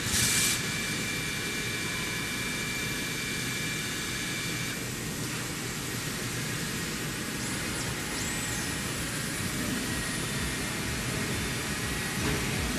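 Gantry milling machine running, a steady rushing machine noise. There is a short hiss right at the start and a thin high whine that stops about five seconds in.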